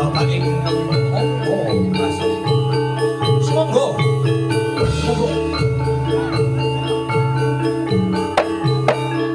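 Gamelan music for jathilan, played over a loud sound system: metal mallet instruments strike a running melody of short ringing notes, several a second, over a repeating low bass note.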